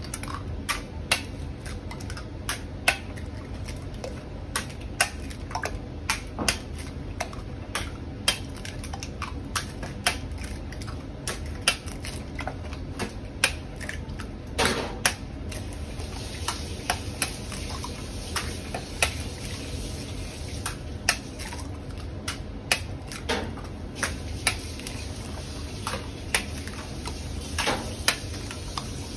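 Eggs being cracked one after another on the rim of a large metal tin, a sharp tap every second or so with the wet plop of each egg dropping into the eggs already collected. A steady low hum runs underneath.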